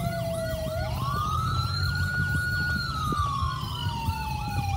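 Two emergency-vehicle siren tones sounding together: a fast repeating yelp and a slow wail that rises about a second in, holds, then falls slowly. A low steady road rumble comes from inside the moving car.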